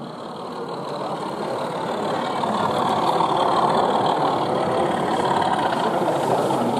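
Model British Rail diesel locomotive running, its diesel engine sound growing louder over the first few seconds and then holding steady.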